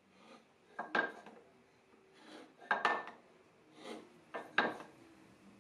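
Pieces of walnut being handled on a wooden workbench: short wooden knocks and scrapes as the parts are shifted and set down, four times about a second apart.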